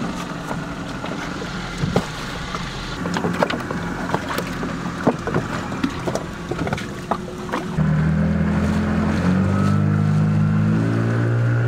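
Knocks and clatter of bags and gear being handled in a dinghy, then background music with a steady bass line coming in suddenly about two-thirds of the way through.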